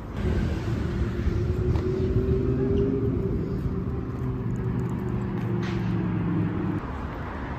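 A motor engine running with a steady low hum, which cuts off suddenly near the end.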